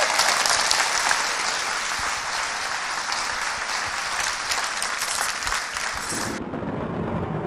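Lecture audience applauding, a dense clapping that cuts off suddenly about six and a half seconds in.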